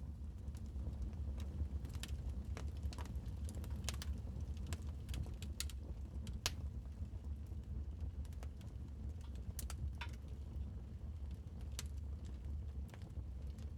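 Wood fire crackling in a fireplace: irregular sharp pops and clicks of burning logs over a steady low rumble.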